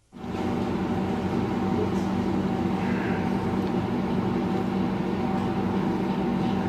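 A steady machine-like hum with several held tones, cutting in abruptly after a moment of silence and staying even throughout.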